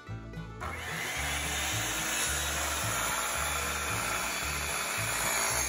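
Corded handheld circular saw starting up about half a second in and cutting steadily along a wooden board.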